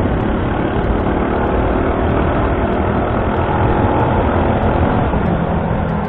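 Suzuki Shogun Pro 125 motorcycle's single-cylinder four-stroke engine running steadily while the bike is ridden, at an even level throughout.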